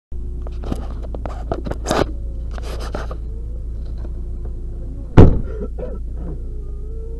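Subaru Legacy rally car's flat-four engine idling, heard from inside the cabin as a steady low drone, with clicks and rattles in the cockpit and one loud thunk about five seconds in.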